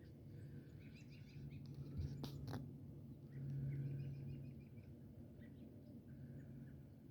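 Small birds chirping, with short calls repeated in quick runs, over a low steady hum; two sharp clicks a little over two seconds in.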